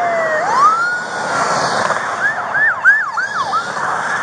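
Police car siren: its wail falls low, rises and holds, then about halfway through switches to a fast yelp of about five quick rising-and-falling sweeps, over a steady rush of noise.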